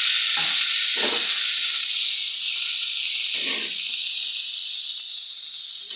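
Water just added to a hot pan of fried potato, soya chunk and green pea masala sizzling with a steady hiss that slowly dies down. A spatula scrapes through the curry about three times.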